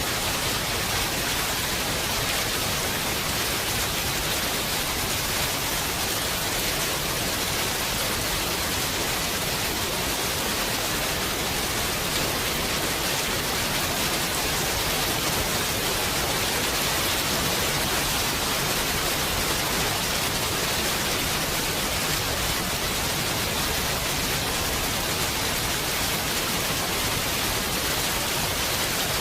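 Heavy rain falling steadily: a dense, even hiss with no thunder or separate drops standing out.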